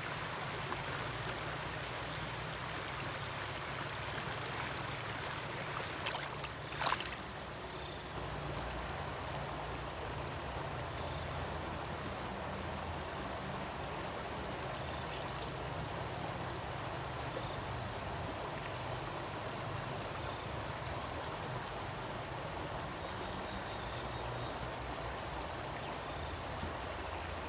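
Stream water running steadily, with two short clicks about six and seven seconds in.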